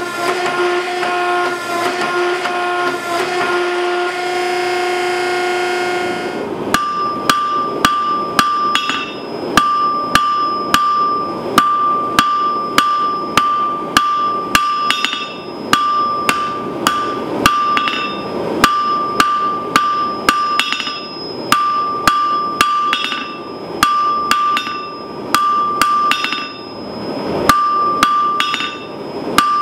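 A forging press runs with a steady pitched hum for the first six seconds or so. Then a hand hammer strikes hot steel rod on an anvil, about three blows a second in runs with short pauses, and the anvil rings clearly after each blow.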